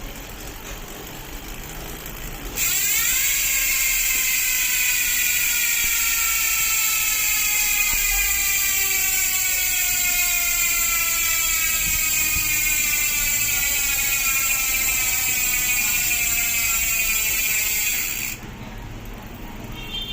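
Dartmoor Reel Pro rear bicycle hub freewheeling, its freehub giving a loud, high buzz. The buzz starts suddenly about two and a half seconds in and falls slowly in pitch as the wheel coasts down, then stops abruptly near the end. The hub is lubricated with hub oil.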